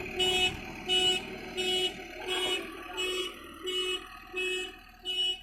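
JCB 3DX backhoe loader's reversing alarm beeping steadily, about three beeps every two seconds, with the machine's engine running faintly underneath.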